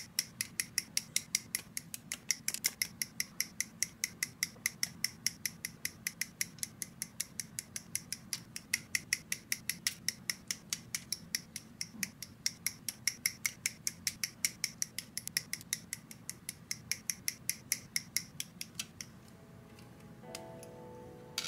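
Hobby sprue cutters snipping plastic model parts off a sprue: sharp clicks in a fast, even run of about five a second. The snipping stops near the end, where soft lo-fi music comes in.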